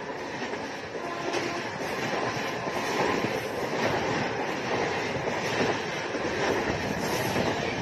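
A double-decker passenger train passing close by: a steady rumble of coaches and wheels on the rails, with a repeated clatter.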